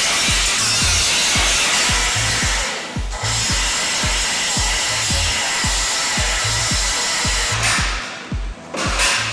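Background music with a steady thumping beat, over the steady hissing noise of a power tool at work on metal, which drops out briefly about three seconds in and falls away near the end.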